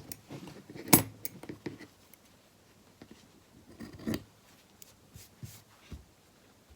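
Light clicks and small knocks from handling craft tools and materials at a work table, the sharpest about a second in and another cluster about four seconds in, with a few fainter ticks after.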